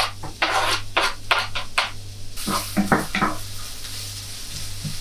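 Onions frying in a pan: a spatula stirring them in several short scraping strokes, then a steady sizzle from about halfway through.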